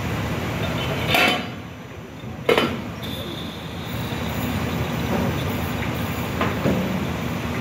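Steady rumbling noise on the deck of the SS Badger car ferry as it docks. There is a short loud burst about a second in, a sharp knock a second later, and a couple of lighter knocks near the end.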